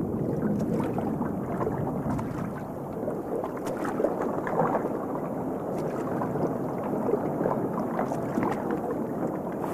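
Water splashing and churning steadily as an osprey thrashes at the surface of the lake, weighed down by a large fish it cannot lift.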